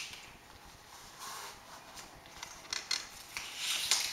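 Hands pressing a banner onto the adhesive strip of a roll-up banner stand's top cross piece while peeling back the strip's tape covering: soft rubbing and crinkling, with a few light ticks near the end.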